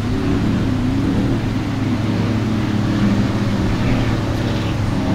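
Offshore racing powerboats running at speed, a steady engine drone whose pitch wavers slightly.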